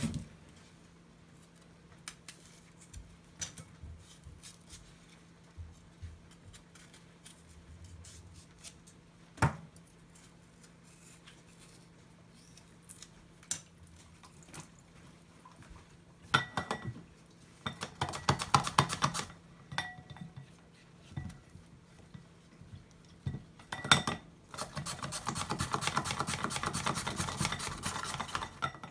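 Chayote being cut in the kitchen: scattered light knife taps on a plastic cutting board, then two spells of fast, repeated rasping strokes as it is sliced on a wooden hand slicer over a glass bowl, the longer spell near the end.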